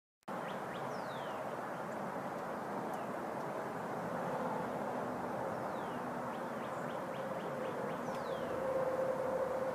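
Steady outdoor background hum with a few faint, high, falling chirps.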